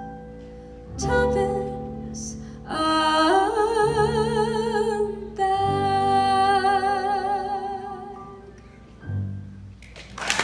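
Closing bars of a song: accompaniment chords struck and left to ring, under a long held sung note with vibrato that fades out near the end.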